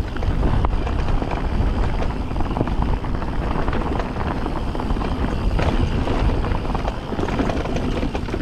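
Wind rumbling on the microphone while a mountain e-bike rolls over rocky trail, with a steady patter of small clicks and rattles from the tyres and bike.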